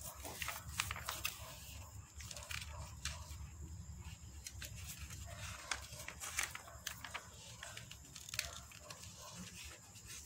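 Glossy paper catalogue pages rustling and crinkling under the hands, with a page being turned about six seconds in, over a faint low hum.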